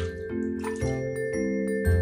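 Background music: a light tune with its chords changing about twice a second over a bass line.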